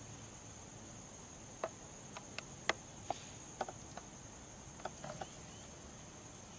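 A steady high-pitched insect trill runs on. About a dozen sharp scattered clicks and ticks come between about a second and a half and five seconds in.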